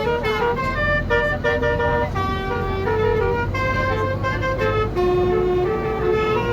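Basuri musical air horn (telolet) on a bus, heard from inside the bus, playing a quick tune of clear held notes that change pitch every fraction of a second, over the low steady drone of the bus engine.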